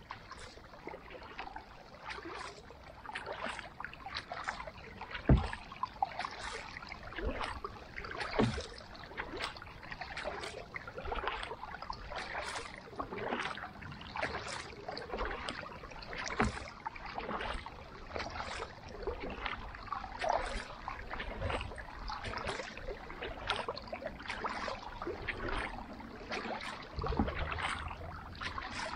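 Kayak paddle strokes: a carbon paddle's blades dipping and splashing in the water in a steady rhythm, with water running off them. A few low thuds, the loudest about five seconds in.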